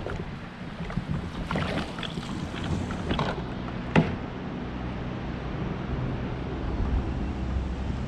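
A few short knocks and clicks from gear being handled on a fishing kayak, the sharpest and loudest about four seconds in, over a steady low rumble.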